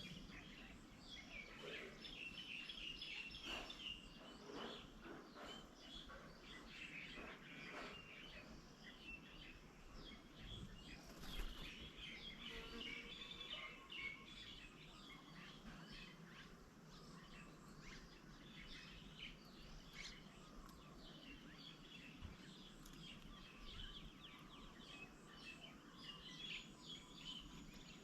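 Faint outdoor ambience with small birds chirping and calling, many short calls overlapping throughout, over a low steady background noise. A brief sharp knock stands out about 11 seconds in.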